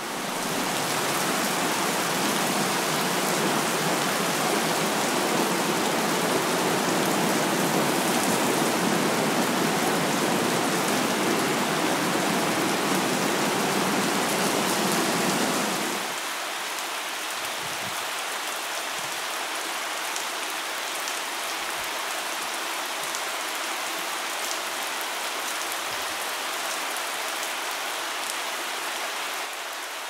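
Steady rain falling, heard as a dense, even hiss. About sixteen seconds in it drops in level and loses its deeper part, becoming a lighter, thinner hiss.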